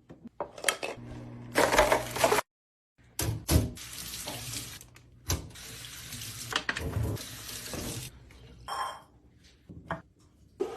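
Water running and splashing from a tap, in stretches that start and stop abruptly, with knocks and clinks of kitchen containers in between.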